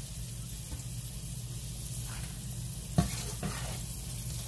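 Battered shrimp frying in a deep pan of hot oil, a steady sizzle. A metal spoon knocks against the pan twice about three seconds in as the pieces are scooped out.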